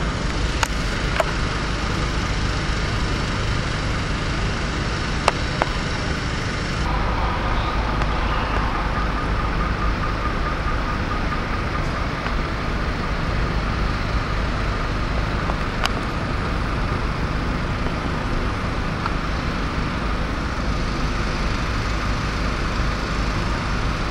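Steady low rumble of vehicles and traffic, with a few sharp clicks. About seven seconds in, the hiss above it drops away and a faint steady tone joins the rumble.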